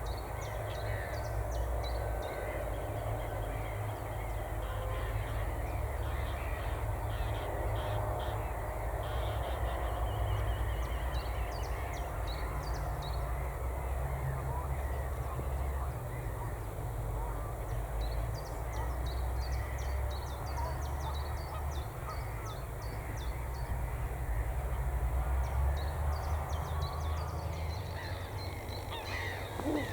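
Wild birds calling, many short calls and chirps overlapping throughout, over a steady low rumble.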